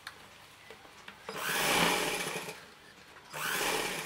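Sewing machine stitching in short runs: it runs for about a second, stops, and starts again near the end, sewing a straight seam down the fabric.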